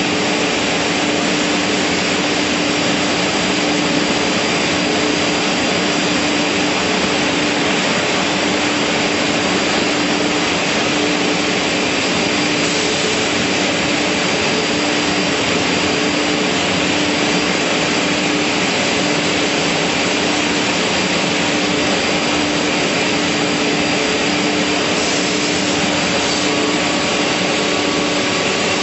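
Beam panel saw running: a loud, steady machine noise with a constant hum, its blade motors spinning without a break.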